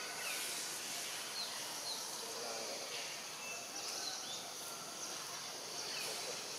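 Tropical forest ambience: a steady high hiss of insects, with short bird chirps and little falling whistles scattered through it.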